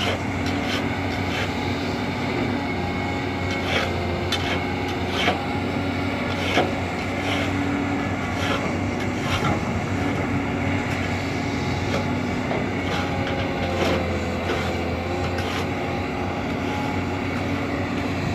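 Caterpillar 320D excavator's diesel engine running steadily under hydraulic work, with scattered sharp knocks, the loudest about five and six and a half seconds in.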